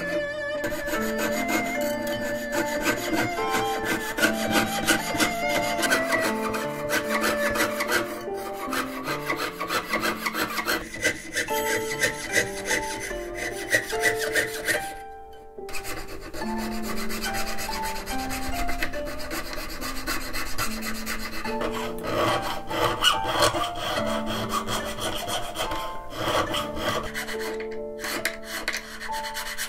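Jeweler's fret saw cutting thin brass sheet on a wooden bench pin, fast repeated rasping strokes, with a short break about halfway. Background music with held melody notes plays throughout.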